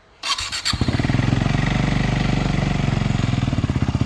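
KTM RC390 single-cylinder engine cold-starting through a Barrel Exhaust Rouge end-can with the dB killer removed. The electric starter cranks for about half a second, the engine catches, and it settles into a steady, pulsing idle.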